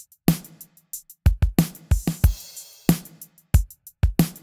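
Drum kit loop played back through an emulated Chandler-style equalizer plugin: kick, snare and hi-hat hits in a steady groove, with the snare's high end brightened by the EQ.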